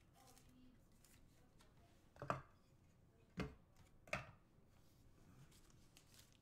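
Three short taps of trading cards and clear plastic card holders being set down on a tabletop, spread over about two seconds, with near silence around them.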